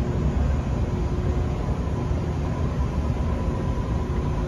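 Steady low rumble of a large indoor exhibition hall's background noise, with a faint steady hum.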